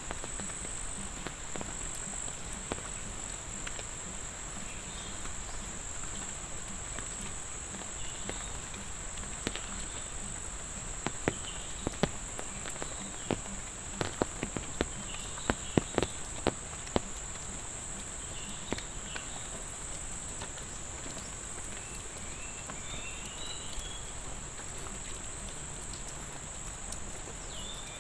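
Insects, crickets by their sound, keep up a steady high-pitched trill over a light patter of rain. A run of sharp taps comes in the middle, with a few faint chirps here and there.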